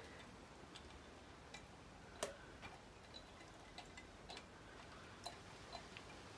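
Faint, irregular clicks and taps of a wire whisk scraping and knocking inside a plastic measuring jug as thick pouring medium is scraped out into a bucket, the loudest tap about two seconds in.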